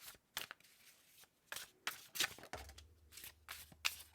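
A tarot deck being shuffled by hand: a run of short, irregular card snaps and flicks.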